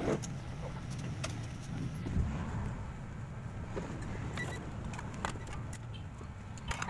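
Scattered light clicks and taps of tools and the circuit board being handled, over a steady low background rumble.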